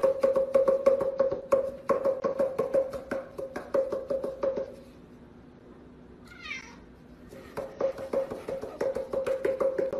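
Cardboard tubes drummed in quick runs on a cat's back, several hollow bonks a second, each with the same ringing pitch. The tapping stops about five seconds in, a short meow comes during the pause, and the bonking starts again.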